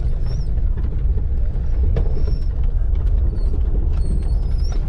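Vehicle driving slowly along a rough dirt track: a steady low engine and road rumble with occasional knocks from bumps in the track.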